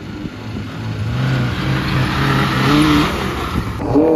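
An off-road 4x4's engine pulling up a dirt track, with tyre and gravel noise, growing louder as it nears. Just before the end it changes abruptly to a closer engine note that rises and then holds steady.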